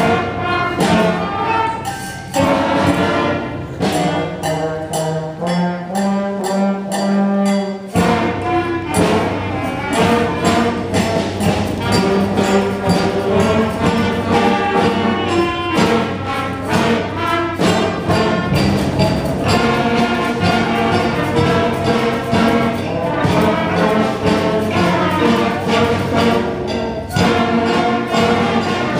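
A school band playing, with brass such as trumpets and trombones to the fore; the full ensemble comes in with low notes about eight seconds in.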